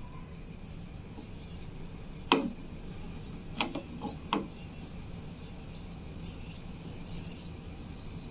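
Wooden spatula knocking against a nonstick pan of semai simmering in milk: one sharp knock about two seconds in, then three lighter ones a second or so later. Under it a gas burner hums steadily.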